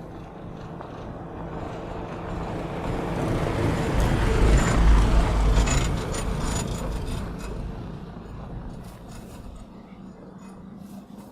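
Light truck driving past: its engine and tyre noise build, are loudest about five seconds in, then fade away.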